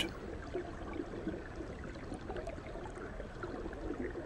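Faint, steady water ambience: a low hiss of flowing water with scattered small ticks.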